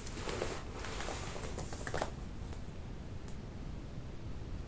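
Faint rustling with a few soft clicks over a low, steady room hum, as a person shifts in his seat.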